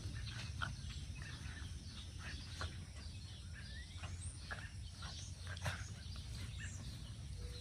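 American robins giving scattered short, sharp calls over a low steady outdoor rumble. They are stirred up, probably because of a cat nearby.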